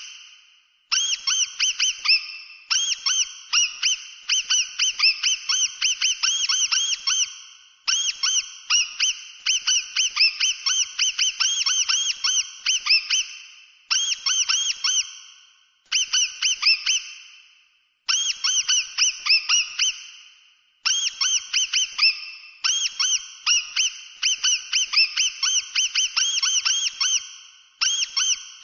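Mouse squeaking: rapid runs of short, high squeaks, several a second, each rising and falling in pitch. The runs last a few seconds each, with brief pauses between them.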